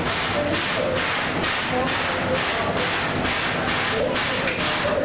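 Steam hissing from a C11 steam locomotive, pulsing evenly about twice a second.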